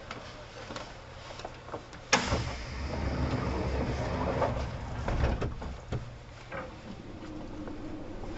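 Sliding doors of a Kintetsu 1810-series train closing with a sharp thud about two seconds in, followed by a few seconds of low rumbling and clicks in the standing carriage before it settles to a quiet hum.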